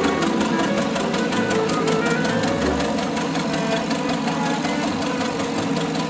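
Old steel-wheeled tractor engine running under load while pulling a plough, its firing beating out a steady, even rhythm.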